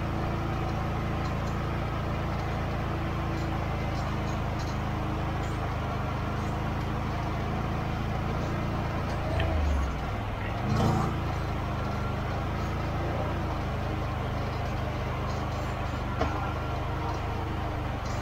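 Can-Am Outlander XMR 650 ATV's V-twin engine running steadily under way. About halfway through the engine note drops, then revs back up. There is a single sharp knock near the end.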